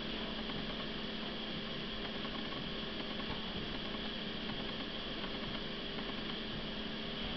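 Steady low hum with an even hiss: room tone, with no distinct events.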